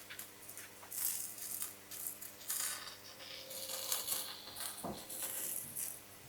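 Chicken sizzling and crackling on a hot grill as its fat melts and bubbles, in irregular spitting bursts.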